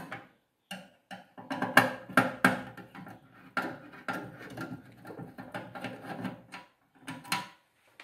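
Screwdriver backing out the screws that hold the thermostat on top of a microwave oven's magnetron: an irregular run of small metal clicks and scrapes.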